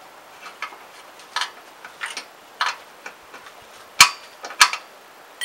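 Irregular light metallic clicks and taps from an Allen key and bolt being worked loose on a motorcycle's chrome exhaust, two louder clicks about four seconds in, then a sharp ringing metal clink at the very end.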